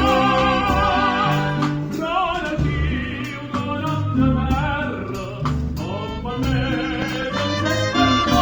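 A cobla, the Catalan wind band of reed tenoras and tibles with brass and double bass, playing a lyrical passage: a melody with wide vibrato over a moving bass line.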